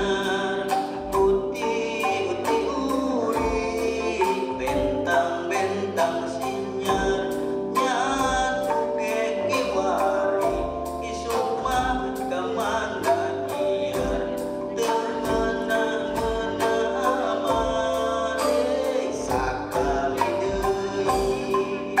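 Live Sundanese ensemble music led by a calung renteng, a row of tuned bamboo tubes struck with mallets, over bass guitar and percussion keeping a steady beat, with a voice singing.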